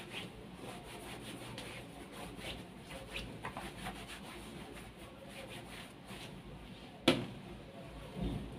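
Rubbing, rustling and small taps of a sneaker being handled and put on, with a single sharp knock about seven seconds in.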